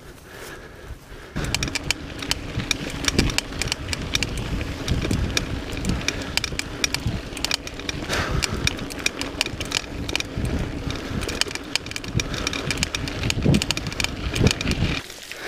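Mountain bike ridden fast over a rough dirt trail, heard from on the bike: tyres rumbling over dirt and stones while the bike rattles with many small knocks. It starts about a second in and cuts off just before the end.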